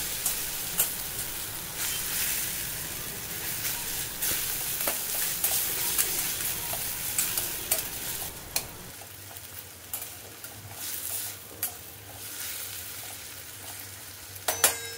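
Slotted metal spatula stirring and scraping mashed aubergine bharit around a stainless steel pan, with irregular scrapes and taps of metal on the pan over the soft sizzle of the mixture frying in oil on low heat. The sizzle eases a little after about nine seconds.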